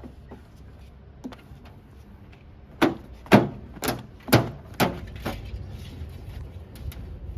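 Heavy diesel machinery working with a steady low engine rumble. About three seconds in comes a run of about six sharp knocks, roughly two a second.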